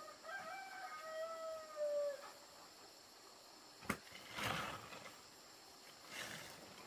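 A rooster crows once, a call of about two seconds. A few seconds later there is a sharp tap, then two brief rustles of a plastic tarp being lifted by hand.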